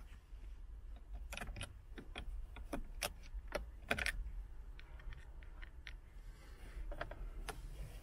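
Irregular small plastic clicks and taps from a screwdriver and fingers working the latches of car wiring connectors behind the centre-console trim. Most come in a cluster in the first half, with a couple more near the end.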